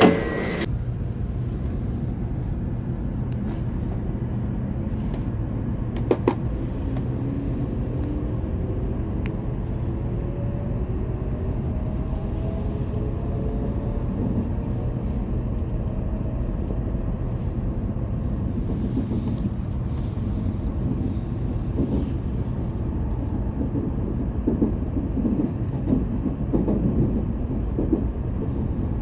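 Steady rumble of a Shinkansen bullet train running, heard from inside the passenger car, with a faint whine that rises slowly in pitch for a few seconds partway through, as the train picks up speed. A few light clicks sound now and then.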